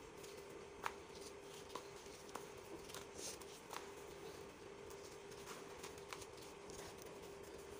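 Dry, gritty sandy dirt being squeezed and crumbled between bare hands: faint crunching and rustling of grains with a few sharp crackles scattered through, over a faint steady hum.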